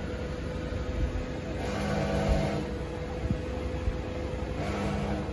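Metal lathe running: a steady motor and gear hum with one constant tone, swelling louder about every three seconds.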